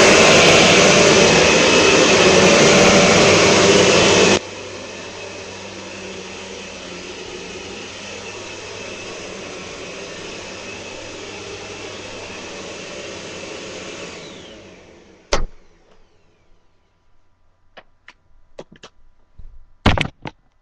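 Eureka Powerline canister vacuum cleaner's 12-amp motor running loudly, dropping abruptly to a much quieter steady run about four seconds in, then winding down as it is switched off. A sharp click follows, then a few faint clicks and a loud knock near the end.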